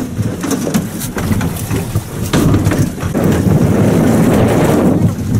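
Wind rumbling on the microphone over water and boat noise in an open aluminium boat at sea, with a few sharp knocks; the rumble grows louder from about two and a half seconds in.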